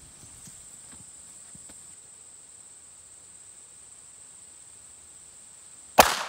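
A single shot from a Ruger LCP II .22 LR pistol firing a 40-grain Aguila Interceptor round, a sharp crack about six seconds in with a short ringing tail. Before it there is only a steady high-pitched insect drone.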